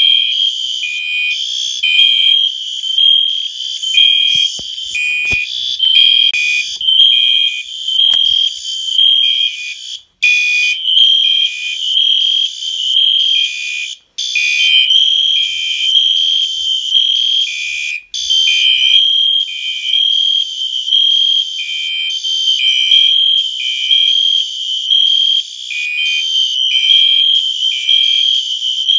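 A collection of fire alarm horns and smoke alarms sounding all at once, loud: a steady shrill tone with several pulsing horn patterns layered over it, out of step with each other. The sound drops out for an instant about three times.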